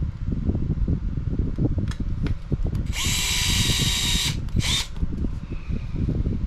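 Cordless powered screwdriver driving a small screw into an RC buggy part: one run of about a second and a half, then a short second burst. A low rumble sits underneath.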